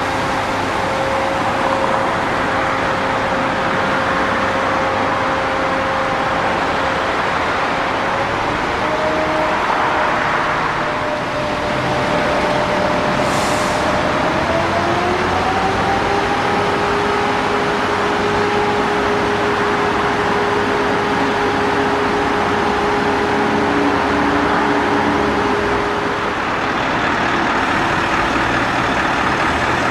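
Heavy diesel machinery running under load, with a steady whine whose pitch rises in two steps as the engine revs up. There is a brief hiss near the middle.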